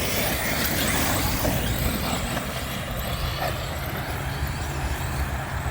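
1/10-scale RC race cars running on the track, a steady rushing noise without a clear engine note.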